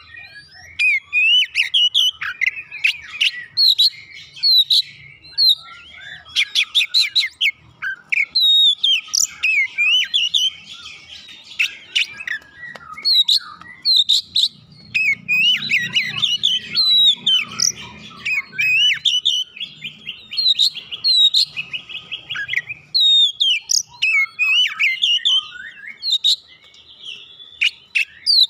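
Oriental magpie-robin singing in full voice: an almost unbroken, varied song of loud whistles, sweeping chirps and rapid ticking trills.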